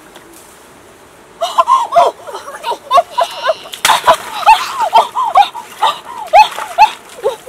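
Water splashing in a shallow muddy stream as a bamboo plunge basket is pushed down into it, with a sharp splash about four seconds in. Many short, high calls rise and fall several times a second from about a second and a half in.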